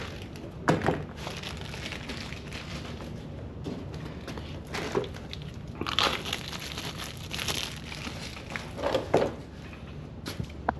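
Plastic packaging crinkling and rustling as a small toolkit is unwrapped and handled, with a few sharp clicks of small metal parts.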